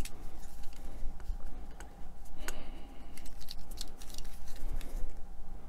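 Light clicks, taps and handling noises of fingers working a thin self-adhesive decking piece on a cutting mat and picking up a snap-off craft knife to lift its peel-off backing, with a quicker run of clicks about three to five seconds in.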